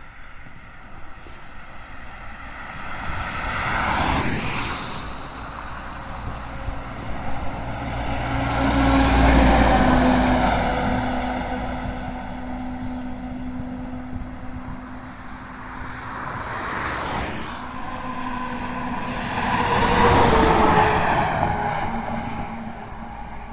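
Road vehicles passing one after another, each pass swelling and fading with engine and tyre noise. A loaded log truck's pass is the loudest and longest, peaking about nine seconds in. A tanker truck passes near the end, and two shorter, quicker passes come about four seconds in and about seventeen seconds in.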